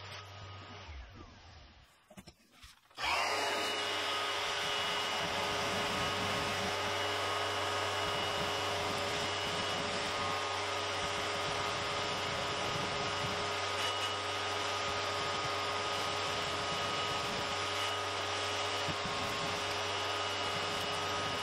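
Vacuum cleaner motor winding down and going nearly quiet, then switched on again about three seconds in: it spins up with a rising whine and runs steadily, sucking up drywall dust at the hose.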